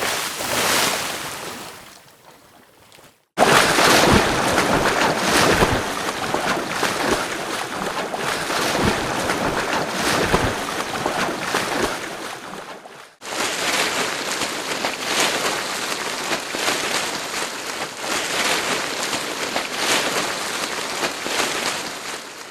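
Water splashing from swimming, in three back-to-back recordings. A splash fades away over the first few seconds. Then comes about ten seconds of loud, dense splashing with many sharp slaps. From about thirteen seconds in there is a steadier run of repeated splashes.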